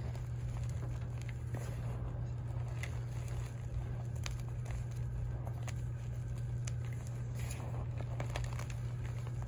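Hands squeezing and crumbling dyed chalk chunks and powder in a bowl: soft crumbling with many small crisp crackles and clicks, over a steady low hum.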